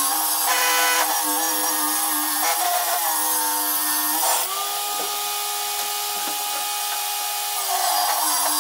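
Table saw ripping a walnut board: the blade runs under load with a cutting rasp for about four seconds, its pitch low and wavering. It then rises to a steady, cleaner whine as the cut finishes and the blade spins free, and drops again near the end as the next board meets the blade.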